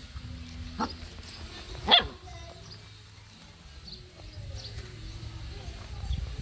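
Puppy barking: two short barks, a small one just under a second in and a sharper, louder one about two seconds in.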